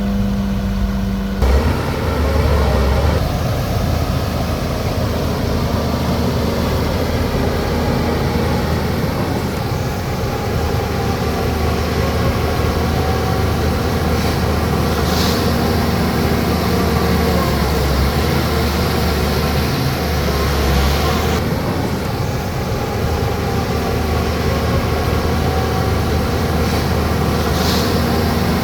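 Bulldozer's diesel engine running steadily while working soil, with a short hiss twice.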